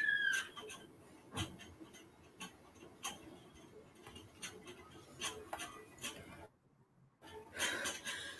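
Faint scattered clicks and ticks over low room noise from open call microphones, after a wavering high tone dies away in the first half second. The sound cuts out to complete silence for a moment about six and a half seconds in.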